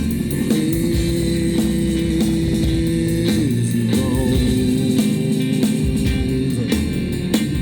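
Live band playing an instrumental passage of a rock song, loud and steady. Held notes sound over a steady beat, and one of them slides down in pitch about three seconds in.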